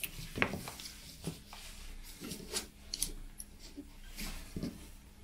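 Multimeter test leads and a power cable being handled on a bench: scattered light clicks, taps and rustles.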